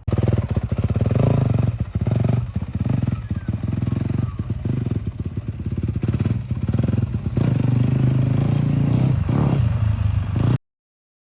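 Yamaha YZ250F motocross bike's engine running loud under throttle, its pitch rising and falling with many brief dips. It cuts off suddenly near the end.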